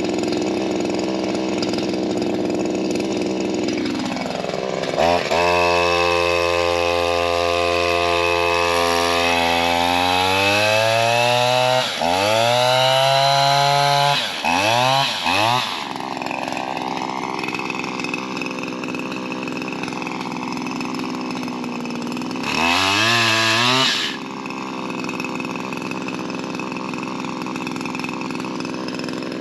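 Small two-stroke engine of a Shindaiwa M230 multi-tool running a pole saw: it idles steadily, is revved up in several rising bursts that drop back, and runs at speed in between.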